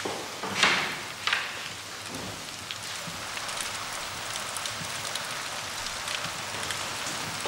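A steady, even hiss like rain, with two short rushing swells of noise about half a second and just over a second in, as the tall wooden folding doors are pushed open.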